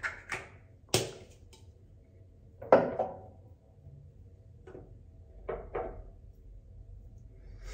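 A few light clicks and knocks of skincare bottles and caps being handled and put down, the loudest a knock a little under three seconds in.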